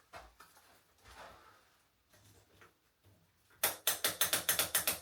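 Bicycle rear hub freewheel ratcheting as the wheel turns, a fast even run of clicks about eight a second that starts about three and a half seconds in, after a few faint handling knocks.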